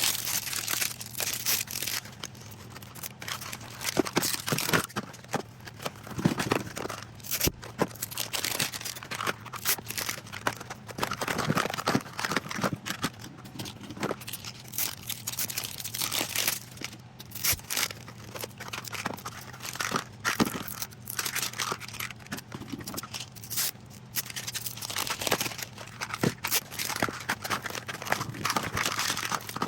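Plastic Mini Brands capsules being handled and pulled apart: continuous crinkling and rustling of plastic with many sharp clicks and knocks.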